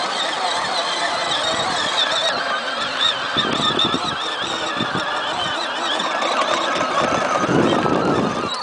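Battery-powered Arctic Cat ride-on toy's electric motors and gearbox whining with a wavering pitch as it drives over bumpy grass. Bouts of rumbling and rattling from the plastic body and wheels come about a third of the way in and again near the end.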